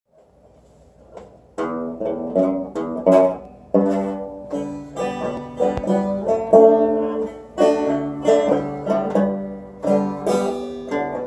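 Six-string banjo strummed in chords, a steady rhythm of sharp, ringing strums that starts about a second and a half in.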